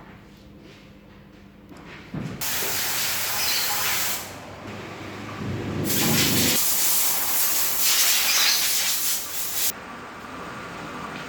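Two long blasts of hissing compressed air, one about two seconds long and the next about four, with a low rumble as the second begins.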